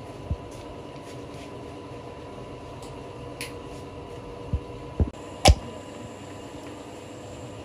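Preform heating oven of a PET bottle blow-moulding machine running with a steady hum, broken by a few sharp mechanical knocks, the loudest about five and a half seconds in.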